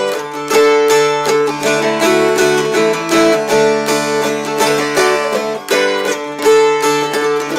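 Two mountain dulcimers strummed together in a duet: a steady low drone sounds under a moving melody, strummed in a quick, even rhythm.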